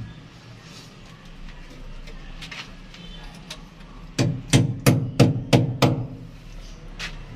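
Six quick hammer blows in a row, about three a second, a little over halfway through, with a few fainter knocks before and after.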